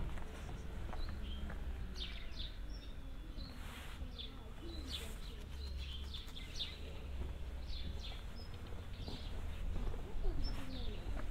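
Small birds chirping: short high calls scattered through, over a low steady background rumble.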